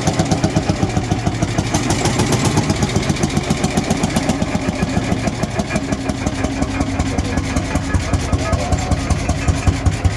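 Pampa tractor's single-cylinder hot-bulb two-stroke engine running with an even, pulsing beat as the tractor drives off.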